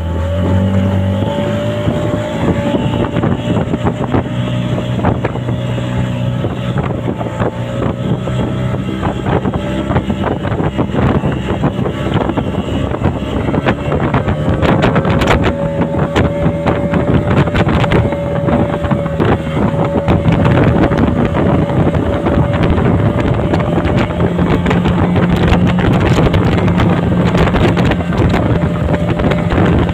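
Speedboat outboard engines running steadily at speed, their pitch wavering slightly, with wind buffeting the microphone and the rush of water past the hulls.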